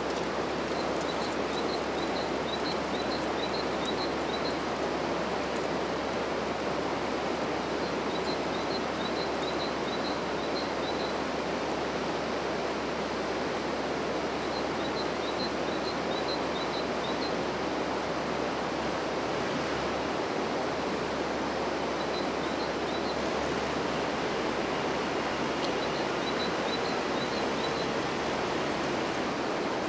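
Steady rushing of river water, the Vltava, an even noise that holds at one level throughout. Short runs of faint high chirps come through over it several times.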